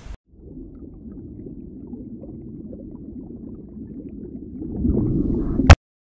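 Muffled low rumbling and rubbing of a camera being handled, growing louder near the end and cut off by a single sharp click.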